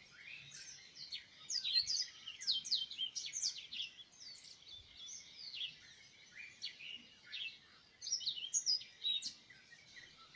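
Small birds chirping in quick, overlapping short calls, busiest at the start and again near the end, with a thinner spell in the middle.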